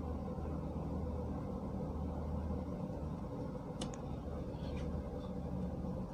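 Steady low hum of workshop room noise, with a few faint light clicks about four seconds in as a circuit board and hand tools are handled on the bench.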